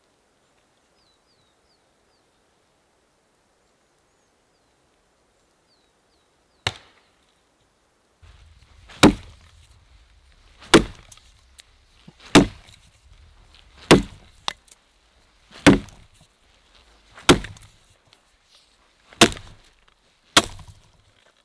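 Axe chopping into a dead, weathered log: after about six quiet seconds, one chop, a short pause, then eight more chops at a steady pace of about one every second and a half.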